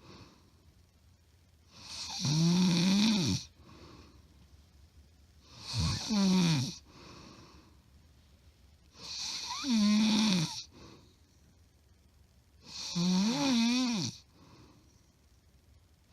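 A woman snoring loudly, recorded up close: four long, loud buzzing snores, about one every three and a half seconds, with faint breaths between them. It is plain heavy snoring, which the uploader says is not sleep apnea.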